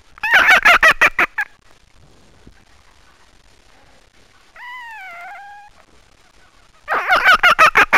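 Fox calling: a burst of rapid stuttering chatter (gekkering) near the start, a single drawn-out whine that rises and then falls about halfway through, and another burst of chatter near the end.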